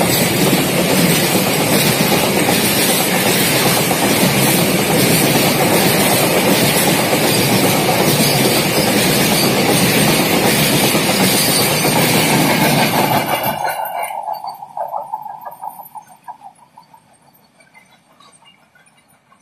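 Double-stack container freight wagons rolling past at close range, a loud steady rumble of wheels on rails. About 13 seconds in the last wagon goes by and the noise drops away quickly, fading to a faint rumble as the train recedes.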